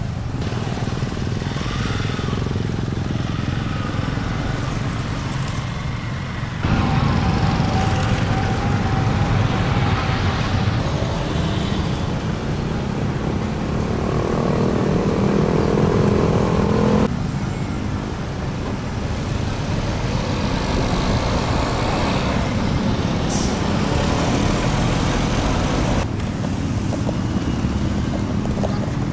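Street traffic: motorcycles and motorized tricycles running and passing, with engine noise throughout. The sound changes abruptly about seven, seventeen and twenty-six seconds in.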